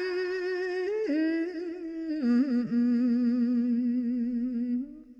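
A woman's unaccompanied voice chanting Khmer smot, holding one long, wavering note. The note steps down about two seconds in and fades out near the end.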